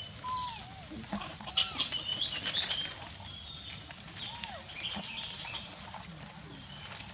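Wildlife calls in trees: many short, high chirps and whistles with a few brief arched calls lower down, over rustling and crackling that is loudest for a moment about a second in.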